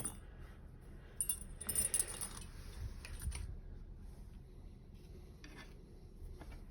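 Light metallic clicks and rattling from lock-picking tools and a pin-tumbler dimple lock being handled: a few clicks, a short burst of rattling about two seconds in, then scattered faint clicks.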